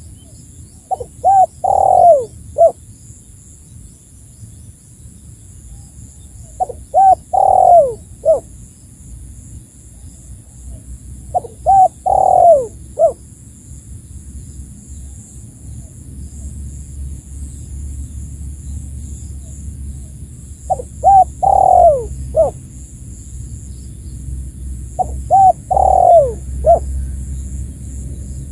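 Spotted dove (tekukur) cooing: five separate phrases, about once every four to five seconds with a longer gap in the middle, each a couple of short coos, one longer drawn-out coo and a short closing note.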